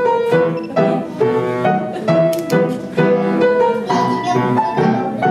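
Instrumental dance music with piano and bowed strings, its notes changing in an even pulse about twice a second.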